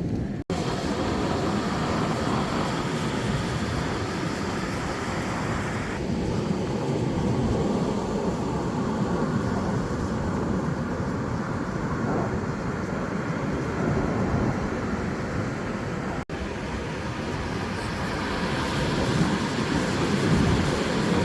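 Steady rushing, rumbling noise of Pacific Ocean surf with wind buffeting the microphone, swelling a little near the end. The sound cuts out for an instant twice, about half a second in and about 16 seconds in.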